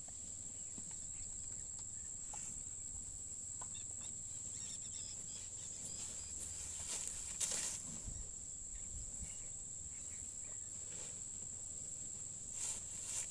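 Steady high-pitched insect buzzing, with a faint low rumble beneath. There is a brief rustle about seven and a half seconds in and another near the end.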